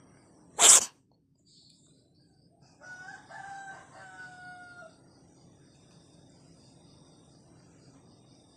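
One short, loud cough about half a second in, then a rooster crowing once for about two seconds, from a bird said to have a cough and cold. Crickets chirp steadily underneath.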